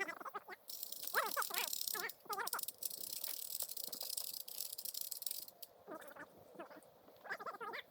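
Steady high insect buzz, with faint voices talking on and off.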